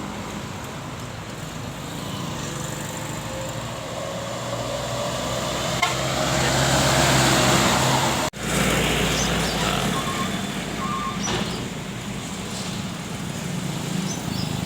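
Heavy engine and tyre noise of a bus passing close on the road, swelling to a peak about seven seconds in and breaking off abruptly just after. Traffic continues with a couple of short high beeps a few seconds later.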